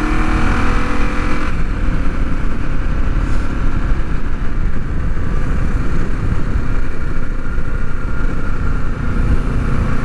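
1973 Honda CB450's parallel-twin engine pulling under way with a slowly rising note; about a second and a half in the note drops away, leaving mostly a steady low rushing noise as the bike rolls on.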